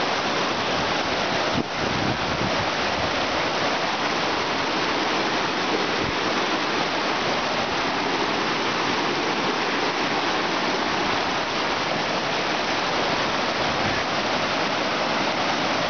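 A fast, silt-laden glacial meltwater stream rushing over rocks and gravel: a steady, loud rush of water.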